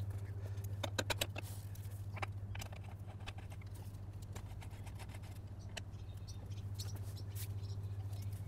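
Scattered light clicks and ticks of hand tools on a bicycle pedal and crank arm as the pedal is tightened, with a few sharper clicks about a second in, over a steady low hum.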